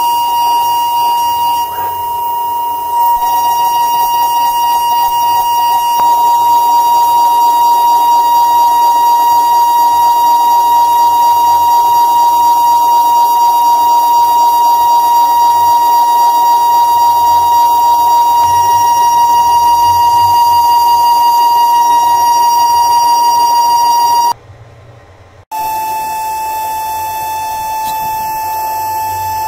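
High-speed CNC engraving spindle whining steadily at a high pitch while its end mill cuts into a metal plate, with a fine regular flutter in the cutting noise. The sound breaks off for about a second near the end and comes back slightly lower in pitch.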